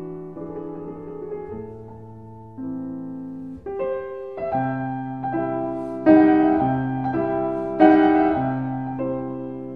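Piano music: slow, sustained chords that change about once a second and grow louder in the second half.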